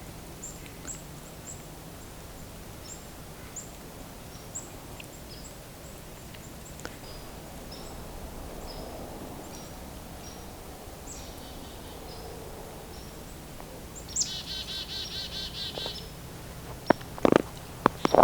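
Black-capped chickadees calling: scattered short, high notes, then near the end a run of rapid, rasping "dee-dee-dee" notes. A few sharp knocks follow close to the end.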